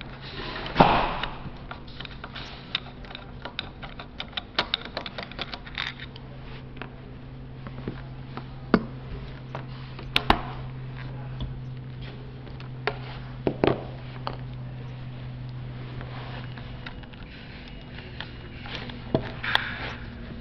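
Scattered clicks, taps and knocks of hand assembly work: a screwdriver and thin steel pins against a grey metal joint and a white tube, and parts being turned and set down on the table, with a few louder knocks among them. A steady low hum runs underneath.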